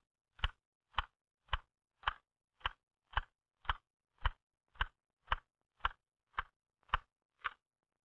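L C Smith manual typewriter keys struck one at a time at a slow, even pace, about two keystrokes a second, each a sharp clack with silence between. It is a slow-paced drill stroke for finger agility and control.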